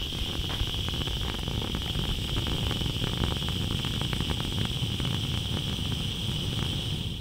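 Gas hissing from a Kovea TKL-N894 camping lantern's burner and burning as an open, crackling flame over a new mantle being burned off at its first lighting.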